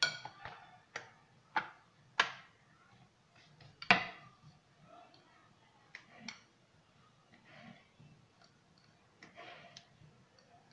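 Irregular sharp knocks and taps of a rolling pin and rolling board against a stone counter as dough is rolled out and turned, about eight in all, the loudest about four seconds in.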